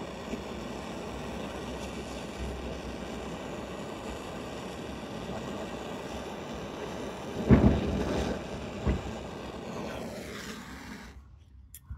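Butane torch lighter's jet flame running with a steady rushing hiss while heating an aluminum bar to melt plumber's solder, with two louder rumbling flares a little past halfway. The flame cuts off about eleven seconds in.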